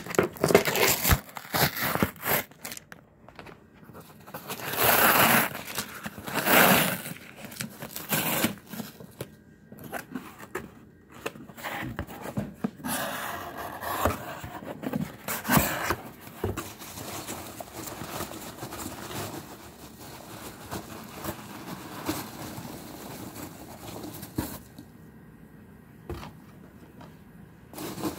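Cardboard shipping box being torn and pried open by hand: repeated scraping and tearing of the taped flaps, loudest in the first half, then fainter rustling as the open box and its foam packing peanuts are handled.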